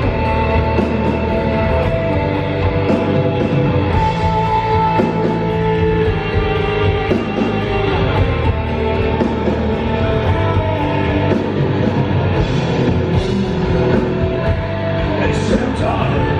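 Heavy metal band playing live at a steady, loud level: distorted electric guitars, bass and drums.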